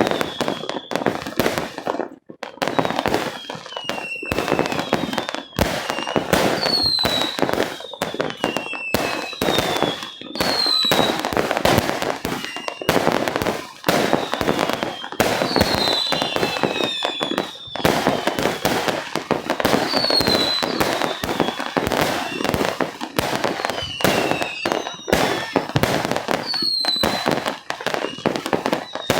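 Fireworks going off in rapid succession: a dense string of sharp bangs, several a second, with short falling whistles between them.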